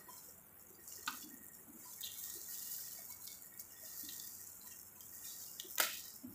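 Wet eating sounds of sucking meat and sauce from crab pieces, with the crackle of crab shells being picked apart by hand. There is a sharp crack about a second in and a louder one near the end.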